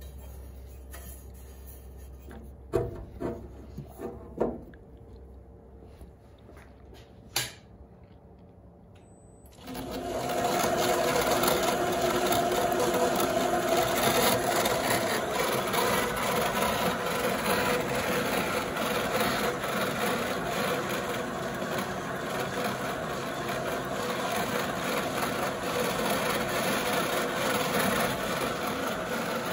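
A few sharp knocks, then about ten seconds in a Brother continuous rover (wool-roving machine) starts up and runs steadily, its chain-and-sprocket drive and rollers turning as it draws Romney wool into roving.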